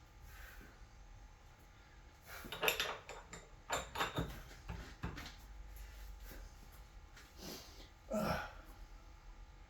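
Metal tools and small parts clinking and knocking as they are handled on a workbench: a quick run of clinks in the middle and one louder knock near the end.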